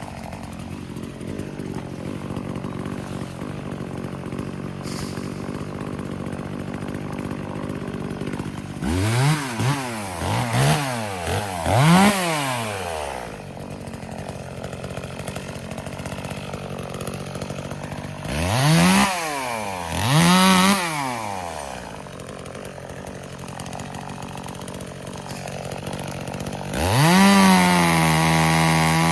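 Chainsaw idling, blipped up to high revs and straight back down several times: three quick revs, then two more, then held at high revs for about two seconds near the end.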